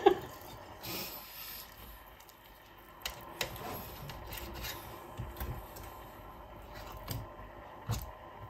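Metal spoon scraping and scooping congealed beef fat off the top of chilled bone-marrow broth in a stainless steel pot: faint scrapes and light clicks of the spoon against the pot, more frequent from about three seconds in.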